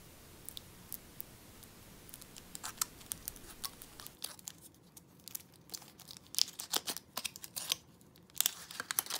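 Thin foil wrapper being peeled and torn off a hollow chocolate figure, crinkling in quick irregular crackles. The crackles are sparse at first and come in busier spells from about two to three seconds in.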